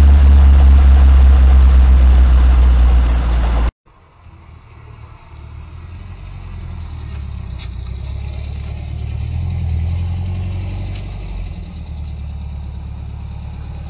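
1973 VW Beetle 1303 S's air-cooled 1.6-litre flat-four engine running under way, heard loud from a camera on the car with road noise, until a sudden cut a few seconds in. The engine is then heard from the roadside as the car drives up, growing louder to a peak near ten seconds in, then idling steadily.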